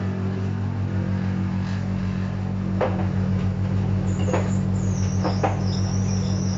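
Vented tumble dryer running just after being started: a steady low hum of motor and fan with a fast regular pulse as the drum turns the laundry, a few knocks, and a thin high whine that comes in about four seconds in. It sounds strained, as the owner puts it, "ganz schön gequält".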